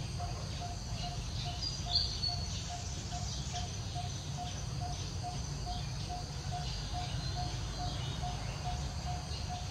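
Outdoor ambience: a steady low rumble, a short note repeating evenly about twice a second, and a brief cluster of high bird chirps about two seconds in.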